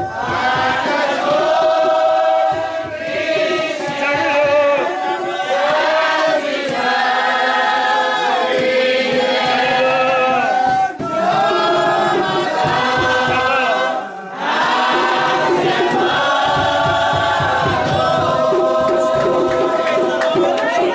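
Spiritual Baptist congregation singing together, many voices holding long drawn-out notes that slide between pitches, with two short breaks about eleven and fourteen seconds in.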